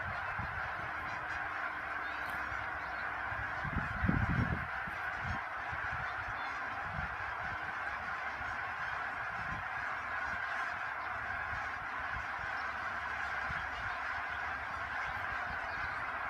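Hundreds of geese honking together in flight, a dense, steady chorus of overlapping calls. A brief low rumble about four seconds in.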